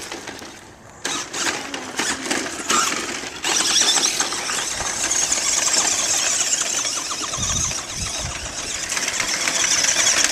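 Electric RC monster truck motor and gears whining as the truck is driven: short bursts with clicks at first, then running steadily from about three and a half seconds in.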